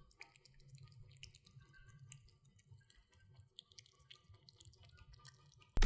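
Munchkin cat eating wet cat food in gravy from a metal dish: quiet, irregular wet chewing and lapping clicks.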